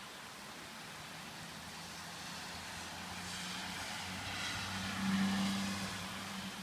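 A car passing by on a wet road: engine hum and tyre hiss build up, peak about five seconds in, then ease off, over a steady hiss of rain.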